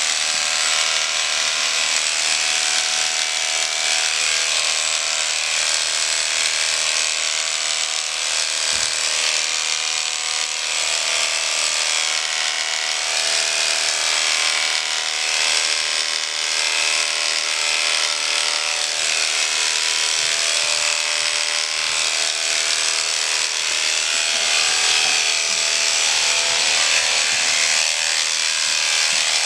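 Corded electric horse clippers running with a steady buzz while cutting through a horse's coat.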